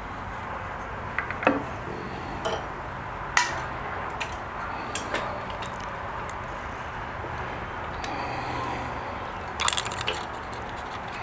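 Scattered light clicks and clinks of small parts and tools being handled during motorcycle repair, over a steady background hiss, with a cluster of clicks near the end.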